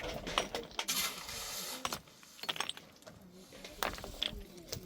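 Irregular light clicks and knocks, a few sharper ones scattered through, with a brief hiss about a second in.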